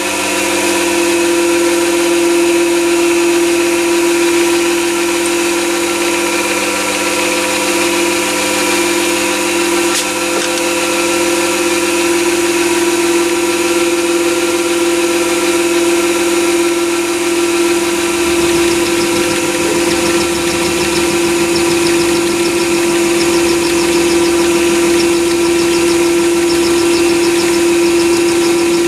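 Chinese 7x14 mini lathe running in low gear at about 400 RPM, its drive giving a steady whine, while a 10 mm four-flute HSS end mill in the chuck takes a 10 thou cut in 316 stainless steel. About two-thirds through, a deeper rumble joins in.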